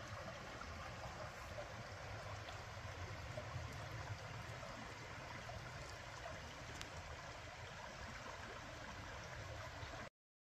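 Creek water flowing with a steady rushing sound that cuts off abruptly near the end.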